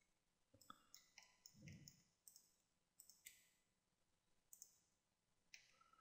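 Faint computer mouse clicks, about a dozen single clicks spaced irregularly, against near silence.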